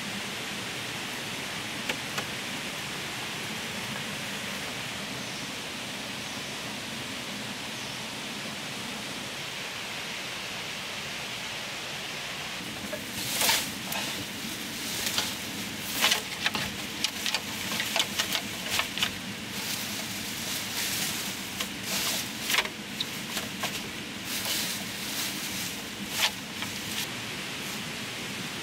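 A steady, even hiss. From about halfway, a run of irregular sharp snaps and crackles comes over it.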